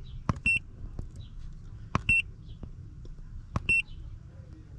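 Handheld Ancel VD700 scan tool's keys pressed three times. Each press is a click followed by a short high beep, about a second and a half apart.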